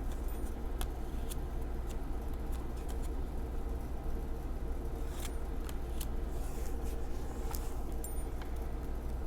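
Tarot cards being handled and flipped through, giving scattered light clicks and ticks, over a steady low hum.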